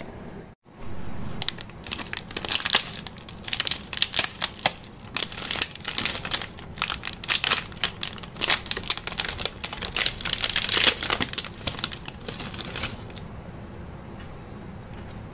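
Clear plastic wrapper crinkling and rustling in quick irregular bursts as fingers pull it open to unwrap a biscotti. The crinkling dies down near the end.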